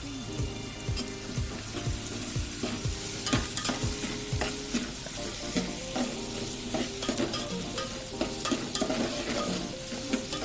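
A metal spoon clinks and scrapes against a steel pot as cooked rice is stirred, over a steady hiss. Background music with held notes plays throughout, with low drum beats in the first few seconds.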